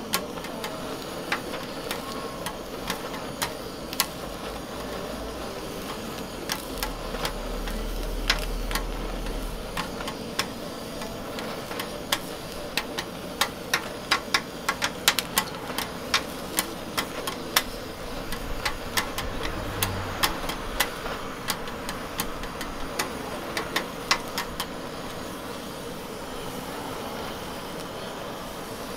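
Metal scraper and spatula clacking against a steel griddle as diced chicken is chopped and turned, in irregular sharp strikes that come thickest in the middle, over the steady hiss of a gas blowtorch flaming the meat.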